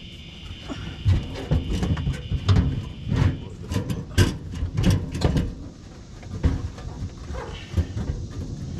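Irregular knocks and clunks of a fuel tank and its hardware being shifted and bumped into place under a car, coming thick and fast for the first few seconds and then thinning out.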